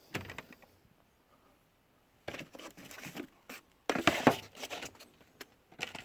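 Metal spanners clinking and rattling against each other as they are handled in a tool chest drawer, in irregular clusters of sharp clicks with a brief pause about a second in and the loudest clatter near the middle.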